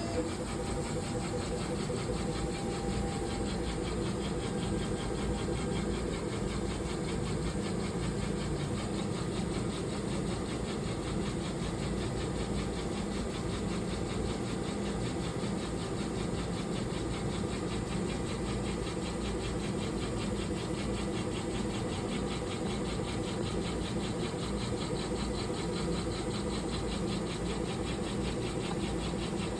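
Universal Laser PLS6.120 CNC laser system running: a steady mechanical whirr with a fast, even chatter from the moving machine.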